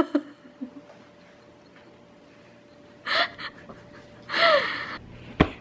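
Two short, breathy gasps about three and four and a half seconds in, the second sliding down in pitch like a small squeal, followed by a sharp click near the end.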